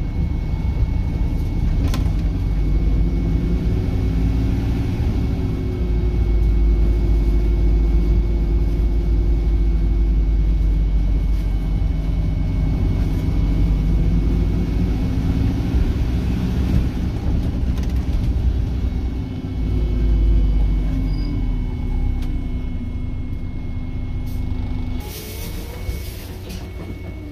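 Double-decker bus heard from inside the upper deck while moving: steady low engine and road rumble with a humming engine note that shifts in pitch. Near the end the rumble drops away and a short hiss of air sounds.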